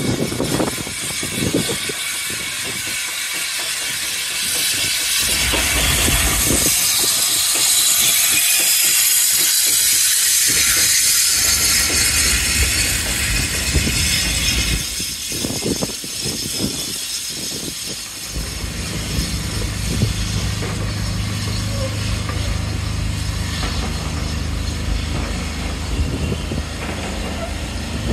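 0-8-0T steam tank locomotive passing close by hauling coaches, with a strong hiss of steam. It is followed by the rumble and knocks of the coaches' wheels rolling past, and a steady low hum through the second half.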